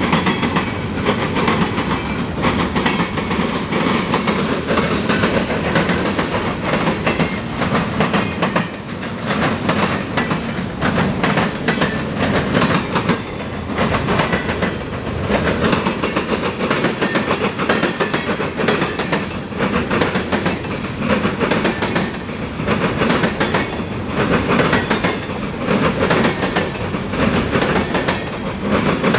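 CSX freight train's cars rolling past, wheels clattering over the rail joints in a steady stream of clicks, with no horn.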